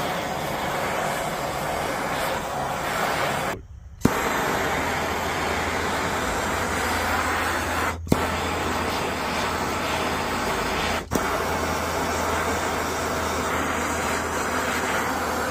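Handheld gas torch burning with a steady hissing rush as it chars the wood of a carved pumpkin. The flame cuts out for about half a second about four seconds in and relights with a sharp click, then dips briefly twice later.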